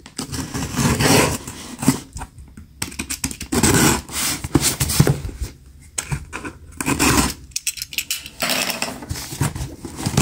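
A taped cardboard box being cut open with a small handheld box cutter: irregular scraping and scratching of the blade along packing tape and cardboard, with hands rubbing and handling the box.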